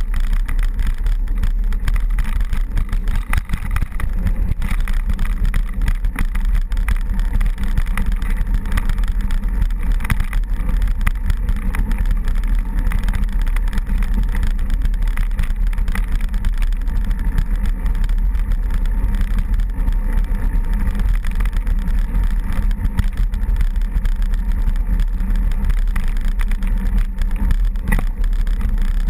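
Steady, loud rumble of wind buffeting the microphone, mixed with the rattle and tyre noise of a mountain bike rolling over a dirt track.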